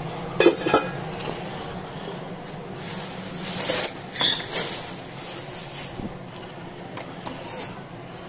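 Kitchen handling noises: two quick clanks of cookware about half a second in, then a rustle and two knocks a few seconds later while a tofu pack and knife are handled at a steel sink. A steady low hum runs underneath.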